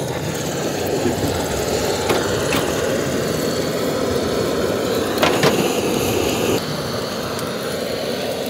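A steady low rumbling noise with a few light knocks. Its character changes abruptly about two-thirds of the way through.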